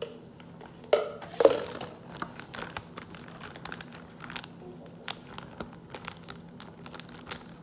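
Clear plastic zip-top bag crinkling as it is handled, with many short crackles. Two louder bumps come about a second in.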